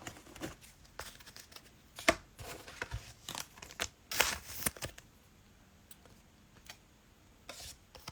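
Trading cards and their cellophane pack wrappers being handled: scattered light clicks and slides of cards, with a longer plastic crinkle about four seconds in.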